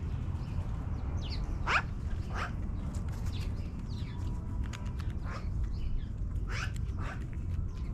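Magpies calling from a tree: about half a dozen short, sharp calls spaced irregularly, a second or so apart, over a steady low rumble.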